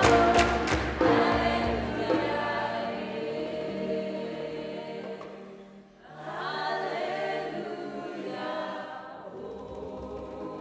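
Gospel choir singing in harmony. The first second carries a few sharp percussive hits, then the choir holds a chord that fades away about six seconds in, and a softer new sung phrase begins.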